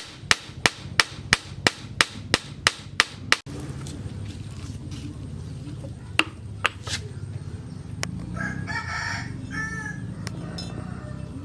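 A blacksmith's hand hammer strikes steel from a tractor plough disc being forged into a long knife, about three blows a second, then stops abruptly. A rooster crows once near the end over a low steady hum.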